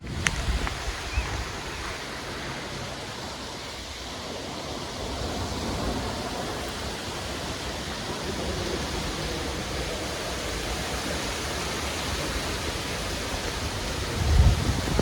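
Steady rain falling with wind, an even hiss. Low gusts of wind rumble briefly near the start and swell again near the end.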